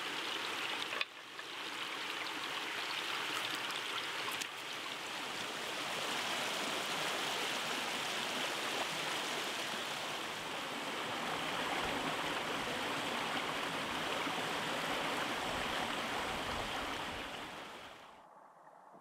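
Shallow stream rushing and splashing over rocks, a steady flow that fades out near the end.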